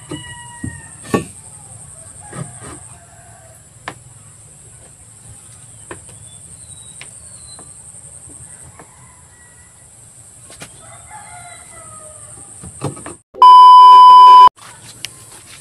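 A rooster crowing near the start and again later, with a few scattered knocks and a steady high buzz behind it. Near the end comes a loud, steady test-tone beep lasting about a second, the sound of a TV colour-bar transition effect.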